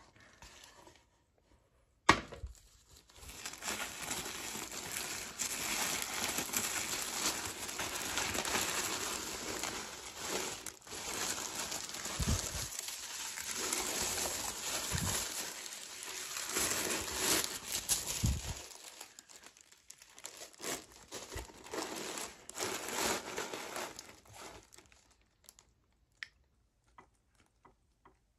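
Tissue paper crinkling and rustling as it is handled, unfolded and lifted out of a gift box, after a single sharp tap about two seconds in. The crinkling dies away near the end.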